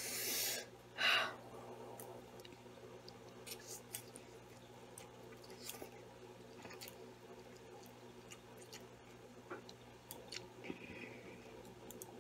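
Faint chewing and mouth sounds of someone eating spicy instant noodles, with scattered soft clicks. Two short, loud breathy rushes come in the first second and a half.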